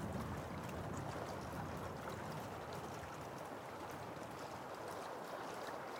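Steady rush of fast-flowing river current over rocks, an even wash of water noise.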